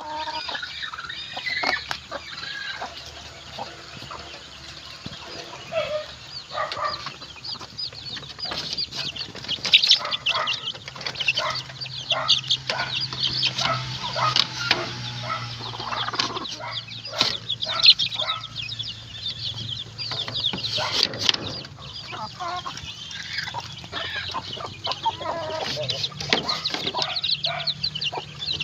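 Chickens clucking and calling, many short high calls overlapping, with scattered sharp clicks and rustles. A faint low hum runs underneath through the middle.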